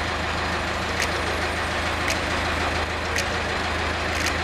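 Sawmill machinery running steadily, with a sharp tick about once a second.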